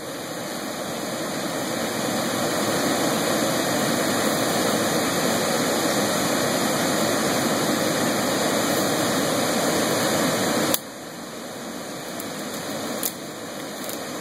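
Steady rushing noise that drops off suddenly with a click about eleven seconds in, leaving a quieter hiss, with a few faint clicks near the end.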